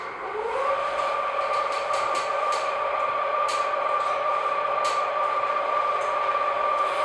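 Telescope mount's slewing motors whining as the telescope swings to a new position: the whine rises in pitch in the first half second as the motors spin up, then holds steady. A few faint ticks sound over it.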